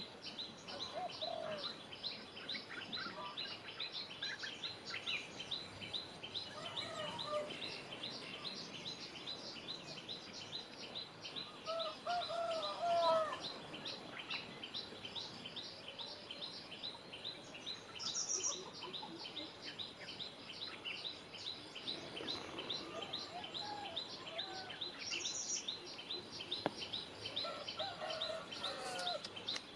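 Birds calling outdoors: a fast, steady series of high chirps, about three or four a second, over a light background hiss, with lower warbling calls now and then. The loudest call comes about twelve seconds in.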